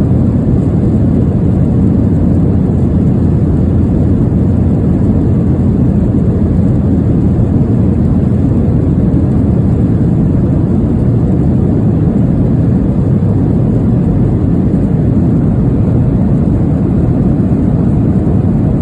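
Steady, deep rumble of an aircraft cabin in flight: engine and airflow noise, even and unbroken, with most of its weight in the low end.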